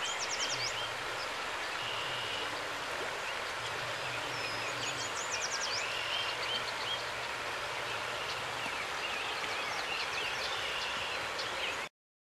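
Several songbirds singing over the steady rush of a stream. A song of rapid high notes comes twice, near the start and about five seconds in, with softer chattering calls between. Everything cuts off suddenly just before the end.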